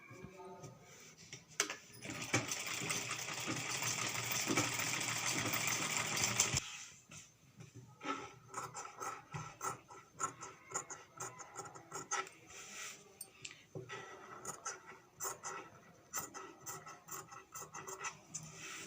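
Sewing machine running in a steady stitching burst of about four seconds that stops abruptly, followed by scattered light clicks and taps of the work being handled.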